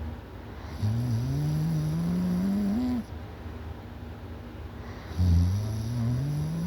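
Loud snoring from a sleeper: two long snores, each rising in pitch over about two seconds, one starting about a second in and the next a few seconds later.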